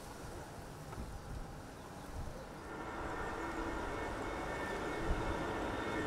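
Faint low rumble at first; from about halfway, an Airbus A320-214's CFM56 turbofans on final approach come in as a steady hum with a high whine on top.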